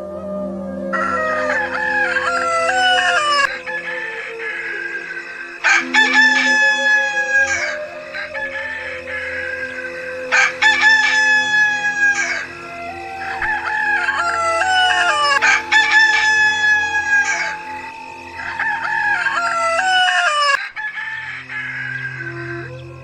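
Rooster crowing again and again, long crows coming roughly every five seconds.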